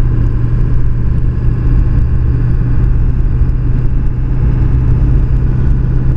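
Steady engine and road drone of a vehicle being driven, with a constant low hum and no change in speed.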